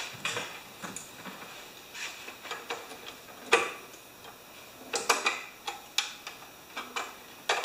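Scattered light clicks and taps of a hand tool and plastic engine parts as the shroud of a Tecumseh lawnmower engine is taken apart, with a few sharper clicks.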